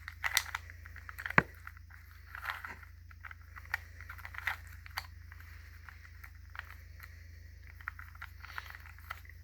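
Plastic Rubik's cube being turned by hand: irregular clicks and short scraping rattles as its layers are spun, the loudest clicks in the first second and a half.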